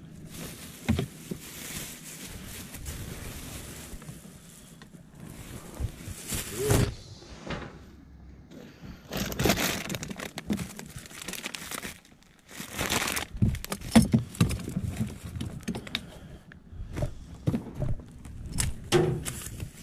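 Clear plastic bag crinkling and rustling in irregular bursts as hands open it and rummage through it.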